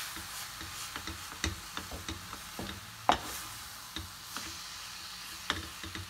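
Wooden spoon stirring and mashing roasted eggplant with toasted flour in a stainless steel frying pan, making irregular knocks and scrapes against the pan, the loudest about three seconds in. A faint sizzle runs underneath from the low heat.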